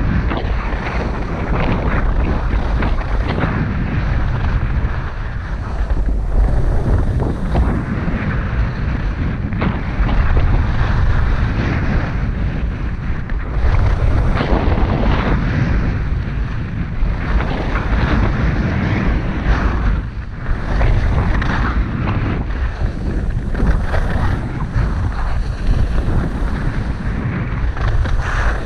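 Wind buffeting the camera microphone at skiing speed, about 35–40 km/h, with the scrape of skis on packed snow. Both surge and ease every few seconds as the skier turns.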